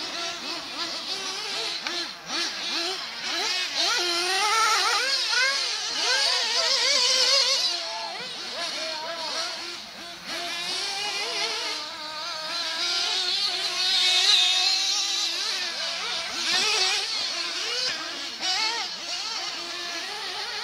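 Small glow engines of 1/8-scale nitro off-road RC buggies, a Kyosho Inferno MP9 and a Losi, running on the track. Their high-pitched engine notes rise and fall as the cars accelerate and brake through the corners, two notes overlapping.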